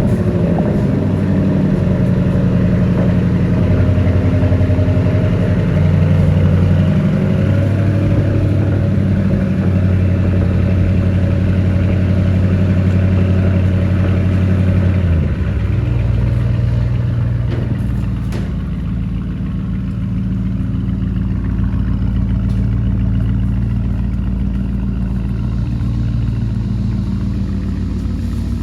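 Car engine idling through an aftermarket valve-controlled exhaust, running steadily after starting. About halfway through, the exhaust note changes to a deeper, slightly quieter tone.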